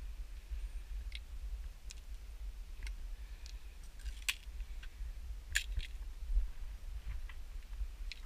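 Scattered light clicks and taps from handling, about ten in all, with two louder ones around the middle, over a steady low rumble.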